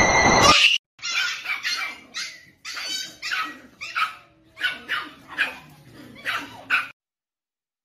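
Small white fluffy dog yapping in a rapid string of short, high-pitched barks, a few a second, that stops about a second before the end. It follows half a second of loud, noisy music that cuts off.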